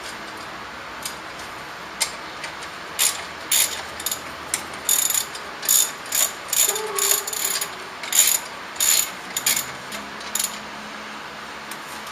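Hand ratchet wrench clicking in about a dozen short bursts, one back-swing after another, as a new brake caliper bolt is tightened. The clicking starts about three seconds in and stops near the end.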